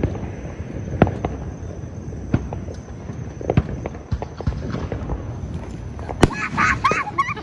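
Fireworks and firecrackers going off at some distance: irregular sharp bangs and pops about once a second over a steady low rumble of further-off explosions, with the sharpest bang about six seconds in.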